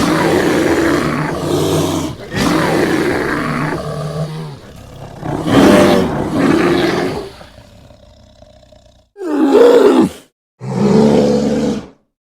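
American black bear growling and roaring in a string of separate clips. A long, rough growl runs for about four seconds, then shorter roars follow, and the last two near the end start and stop abruptly.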